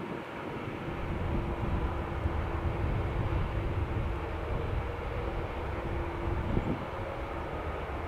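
Airbus A340's four jet engines at taxi power: a steady rumble with a faint, even whine over it.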